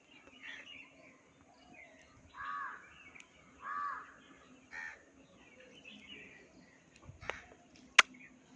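Crow cawing three times, each caw about half a second long, the calls spaced about a second apart. A few sharp clicks follow near the end, the loudest just before the end.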